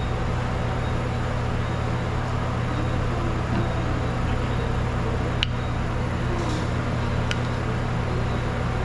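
Steady low mechanical hum with an even hiss over it, and two short sharp clicks about five and seven seconds in.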